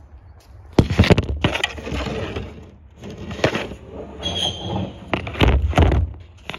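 Handling noise of the recording phone: loud rubbing and scraping right on the microphone, with several sharp knocks and a short squeak. It starts about a second in and stops just before the end.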